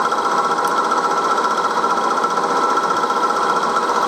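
1938 Bridgeport M-head milling machine running steadily, its spindle turning the end mill, with a steady high hum and a fast buzzing flutter.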